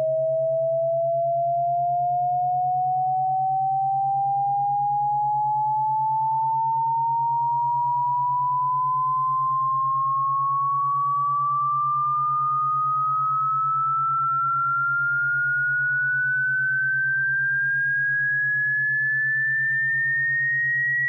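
Electronic sine tone, sold as a cat-repellent sound, gliding slowly and steadily upward in pitch from a mid whistle to a high one, over a steady low hum.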